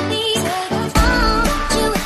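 Upbeat electronic pop dance music with a steady beat and a wavering melody line; a heavy bass comes in about halfway through.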